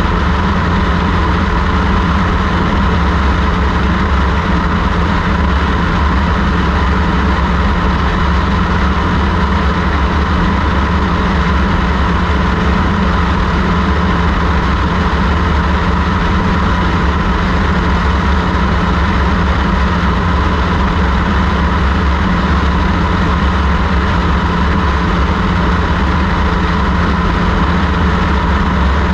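Single-engine high-wing light aircraft in cruise flight: the steady drone of its engine and propeller mixed with wind rush on the microphone mounted outside the plane, with no change in pitch or level.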